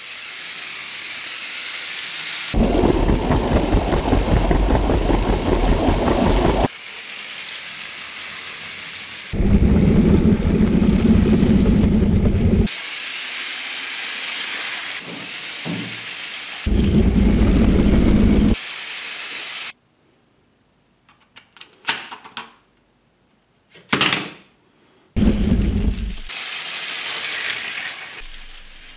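Lego toy trains running on Lego track close to the floor, their electric motors whirring and wheels rumbling along the rails, in short takes cut together. Loud rumbling passes alternate with a softer hiss, and there is a near-quiet stretch with a few brief noises about two-thirds of the way through.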